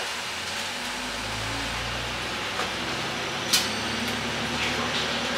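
KiHa 11 diesel railcar running, its diesel engine droning low and steady under the rail noise, with a single sharp click about three and a half seconds in.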